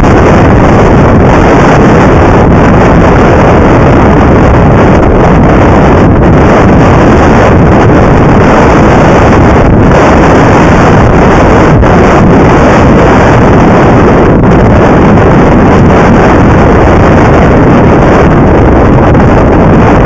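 Strong wind buffeting the microphone of a camera aboard a heeled sailing yacht: a loud, steady rushing noise that overloads the recording, with water rushing past the hull beneath it.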